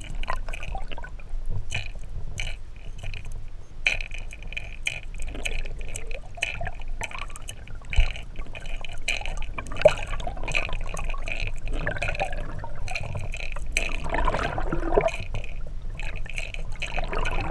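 Rattles inside a hard glider lure clicking irregularly as it is retrieved through the water, heard through an underwater microphone over the water's bubbling and gurgling, with two louder knocks near the middle.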